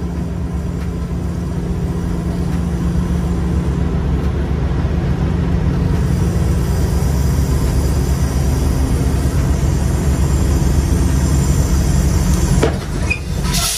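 Semi-truck's diesel engine running at low speed as the tractor backs the trailer toward a loading dock: a steady, deep rumble that grows slowly louder as the truck comes closer, breaking off abruptly near the end.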